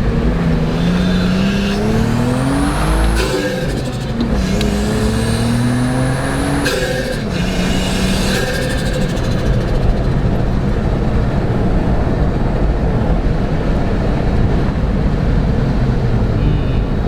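Turbocharged Nissan RB straight-six in a GU Patrol accelerating hard through two gears, its note rising each time with a high turbo whistle climbing over it. At each gear change the note breaks off with a short burst of noise. From about eight seconds in it settles into steady cruising.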